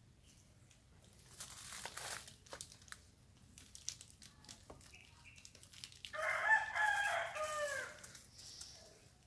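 A rooster crows once, about six seconds in: a call of about two seconds whose last note falls in pitch. A brief rustling noise comes earlier, near the second second.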